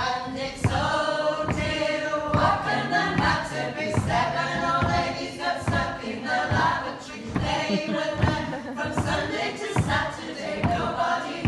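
A small group of women singing together a cappella, several voices in harmony.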